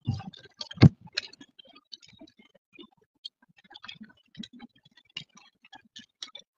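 Irregular light ticks and taps of raindrops hitting the car's windshield and roof, heard from inside the cabin, with one sharper knock a little under a second in.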